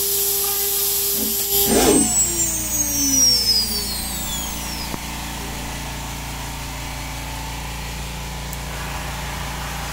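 CNC router spindle cutting aluminium with an end mill, a steady tone; about two seconds in the cut ends and the spindle winds down in a falling whine over about two seconds. The steady hiss of the spray nozzle and a low hum carry on underneath.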